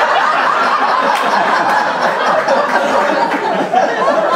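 Audience laughing and chuckling, many voices at once, at a steady level.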